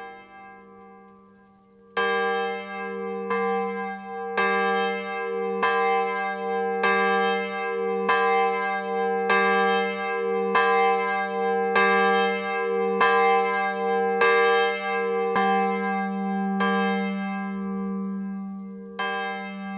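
Schulmerich g5 Classic electronic carillon sounding its sampled G3 swinging bell. The low bell strikes about once every 1.2 seconds, starting about two seconds in, and each stroke rings on into the next. There is a longer gap before the last stroke near the end.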